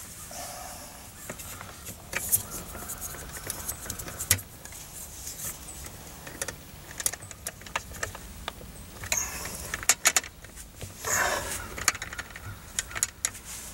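Irregular small metallic clicks and clinks of wires being bent and fed into the terminals of a sheet-metal AC disconnect box, with a brief rustling burst about eleven seconds in.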